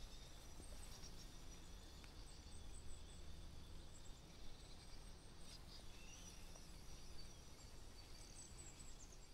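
Faint outdoor ambience: a low steady rumble with scattered faint, high bird chirps.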